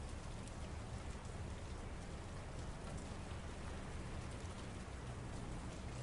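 Steady city rain: a constant hiss of rain on hard surfaces, with scattered patter of individual drops and a steady low rumble beneath.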